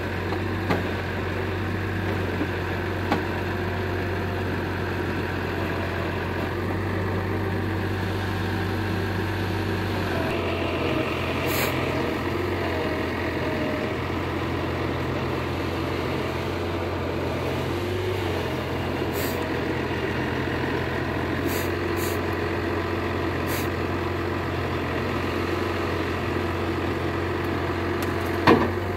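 John Deere 6600 tractor's diesel engine running steadily while its forestry crane handles logs. The engine note shifts about ten seconds in and again around eighteen seconds, with a few light clicks and one sharp knock near the end.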